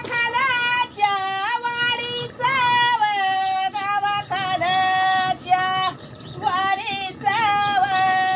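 A woman singing a Marathi ovi, a traditional grinding song sung at the hand quern, unaccompanied. The voice is high-pitched, singing long held notes in short phrases with brief pauses between them.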